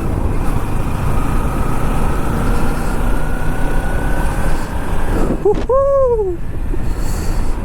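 Kawasaki Ninja motorcycle riding along a road: steady wind and road rumble with the engine running, its faint whine slowly rising in pitch. About five and a half seconds in, a short pitched tone rises and falls.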